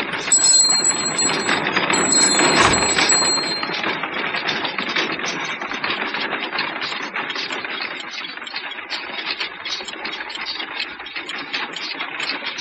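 Horse-drawn coal carts loaded with empty coal boxes clattering and rattling along the street: a dense, rapid rattle that slowly fades. A small bell rings briefly over it during the first few seconds.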